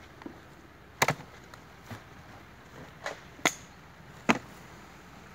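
About six sharp knocks and taps as beehive parts are handled, a cover board being set down on the hive box. The loudest come about a second in, near three and a half seconds and just past four seconds.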